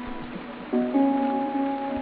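Instrumental background music with steady held notes; a louder new chord comes in under a second in.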